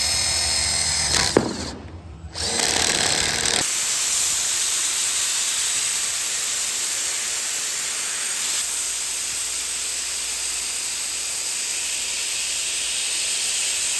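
A power tool spinning with a whine for about a second and a half, stopping with a click. After a brief pause, a steady, loud rushing noise runs on for the rest of the time.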